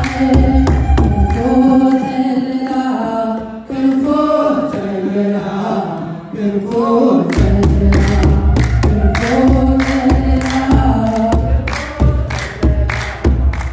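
An Ethiopian Orthodox Yaredawi hymn (mezmur) sung by a group of voices, with a kebero drum beaten in steady strokes. The drum drops out for a few seconds near the middle while the singing carries on, then comes back in about halfway through.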